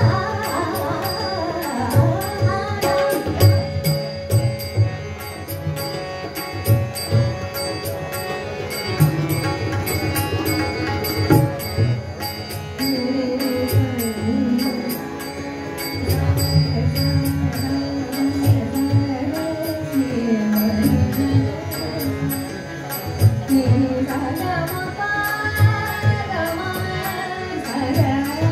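A woman singing a Marathi devotional song, accompanied by tabla, harmonium and small hand cymbals (taal) keeping an even beat.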